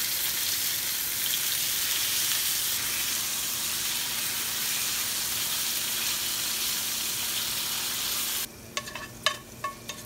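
Pork chops sizzling in oil in a frying pan, a steady hiss. About eight and a half seconds in it cuts to quieter stir-frying of shredded potato, green pepper and carrot, with sharp clicks of chopsticks against the pan.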